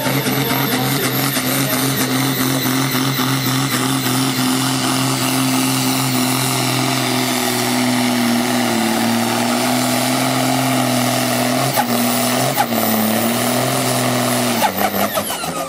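Pulling tractor's engine running flat out under heavy load while dragging the weight sled: a steady, loud drone that sags slightly a few times, with a couple of sharp clicks about twelve seconds in. The engine eases off and drops in pitch about a second before the end.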